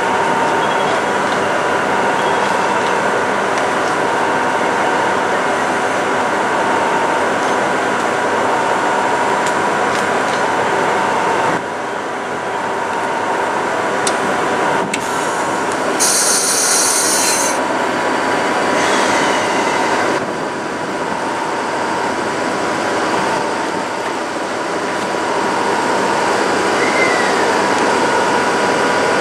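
Steady whirring hum with constant tones from an ED79 electric locomotive standing at the platform with its equipment running. About two-thirds of the way through there is a brief high hiss.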